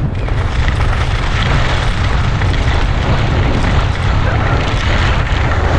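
Wind buffeting the microphone: a loud, steady, fluttering rumble with a hiss over it.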